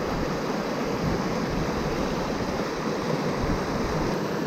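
River water rushing steadily past the rocks, an even flowing hiss with no distinct events.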